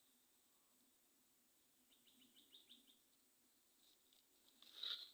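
Faint, short high bird chirps against near silence: a quick run of them about two seconds in, and a louder call near the end.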